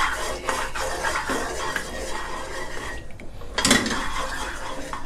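Wooden spatula scraping and stirring around a granite-coated wok with melted lard in it, in repeated strokes, with a short lull about three seconds in and a sharper scrape just after. The oil is not yet hot enough to sizzle.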